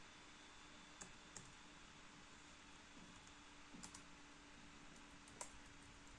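A few scattered keystrokes on the replaced keyboard of an MSI Prestige 15 laptop, about five faint clicks spread out and the loudest a little after five seconds in, as keys are pressed one at a time to check that they work. A faint steady hum sits underneath.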